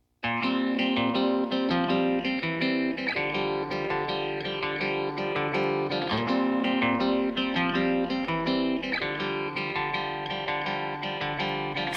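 Background music: an instrumental track of plucked and strummed guitar, starting suddenly just after a cut.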